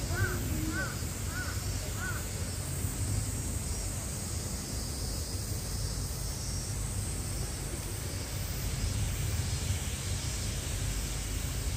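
A crow cawing about four times in quick succession in the first two seconds, then a steady low outdoor background rumble.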